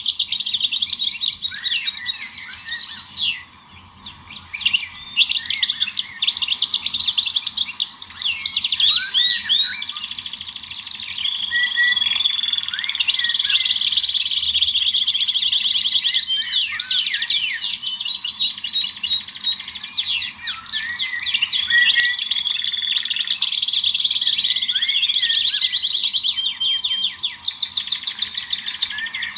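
Many small birds chirping and twittering together in a dense chorus of rapid, overlapping calls and trills. The chorus thins briefly about four seconds in.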